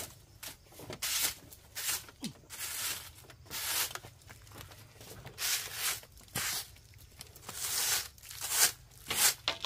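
A broom sweeping bare ground: repeated scraping strokes, about one a second.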